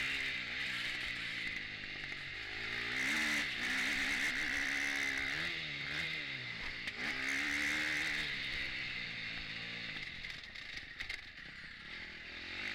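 KTM 250 four-stroke motocross bike engine, heard from the bike itself, revving up and down again and again with throttle and gear changes, dipping lower near the end.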